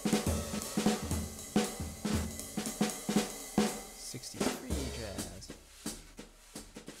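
A sampled acoustic drum kit from Premier Sound Factory's Drum Tree library playing a groove: kick, snare and cymbals, with a brush twirling on the snare. The beat lands about twice a second and gets quieter over the last couple of seconds.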